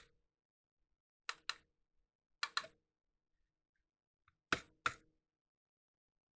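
Short, sharp clicks in quick pairs, four pairs in all, the last pair the loudest, from small hand work at an electronics workbench.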